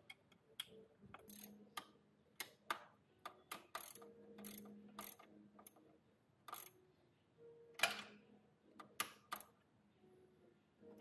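Scattered sharp clicks and light knocks from hand work on a motorcycle radiator guard's mounts, as zip ties are fastened and the lower 10 mm mounting bolt is worked by hand. The clicks come at irregular intervals and are fairly faint.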